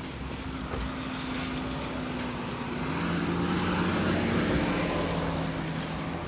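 A motor vehicle's engine running, its sound growing louder to a peak about four seconds in and then fading, as a vehicle moves nearby.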